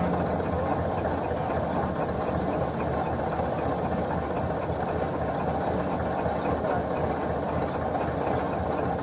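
Kubota DC-70 combine harvester's diesel engine running steadily as the machine cuts rice.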